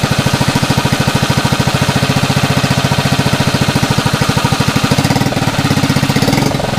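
Yamaha F6 6 hp four-stroke single-cylinder outboard running with a steady, rapid pulsing beat; its sound changes about five seconds in.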